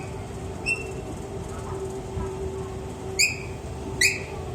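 Escalator running with a steady low hum, broken by short, high squeaks that come three times at uneven intervals. This is the abnormal noise the escalator was making.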